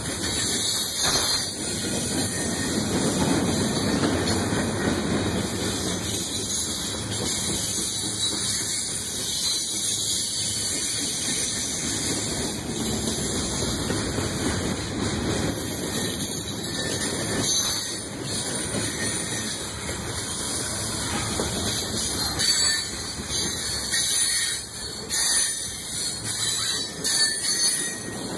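Tank cars of a freight train rolling past close by: a steady rumble of steel wheels on rail with a hiss on top and occasional clicks as the wheels cross rail joints.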